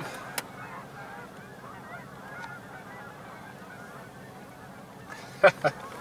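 A large flock of geese honking, many overlapping calls at once, the birds stirred up, likely by a bald eagle chasing them. Two short louder sounds come near the end.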